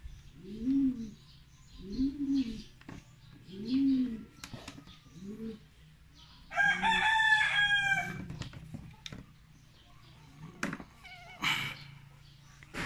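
Birds: low coos repeating about every second and a half through the first half, then a rooster crowing once in the middle; a few sharp clicks follow near the end.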